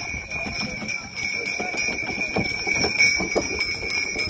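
Bells on the harness of a horse team pulling a wooden cart, jingling steadily as the horses go past at speed, with hoofbeats clopping underneath.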